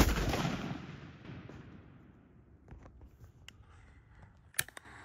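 A single shot from a single-shot 20-gauge Stevens shotgun: one sharp blast whose echo dies away over about two seconds. A few faint clicks follow near the end.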